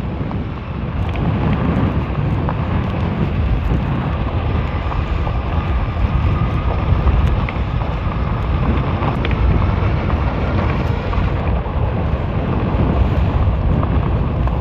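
Steady wind noise buffeting the microphone over the low rumble of a fat-tyre e-bike rolling along a bumpy, rocky road.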